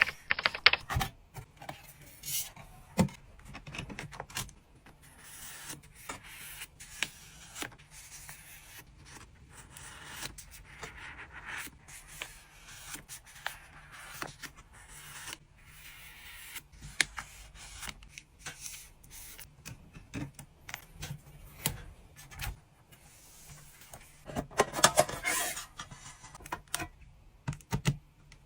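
Hands packing trading cards and their packaging: rubbing, crinkling and scraping of plastic and paper, broken by frequent light taps and clicks. A denser stretch of rustling comes near the end.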